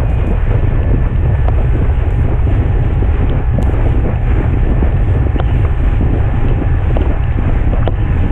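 Steady, loud wind buffeting an action camera's microphone as it is towed at speed over the water, a deep rumble over the rushing hiss of the board's wake spray.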